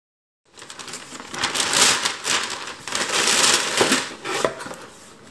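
Paper shopping bag rustling and crinkling as a cardboard box is handled out of it, starting about half a second in, loudest in the middle and easing off near the end.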